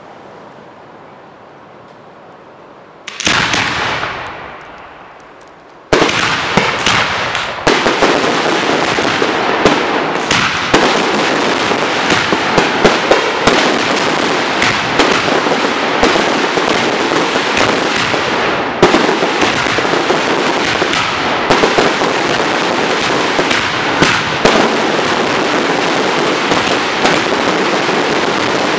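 Fireworks display heard at close range. A fading crackle and one burst about three seconds in, then from about six seconds a loud, dense barrage of crackling with frequent sharp bangs.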